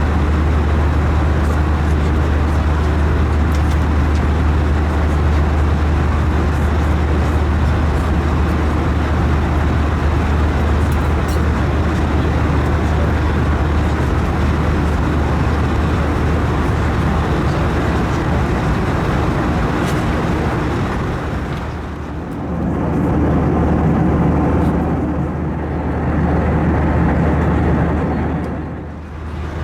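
Airbus A321 airliner noise: a steady low engine hum under an even rushing sound. The level dips briefly about 22 seconds in and again near the end, with a rougher, lower-pitched texture between the dips.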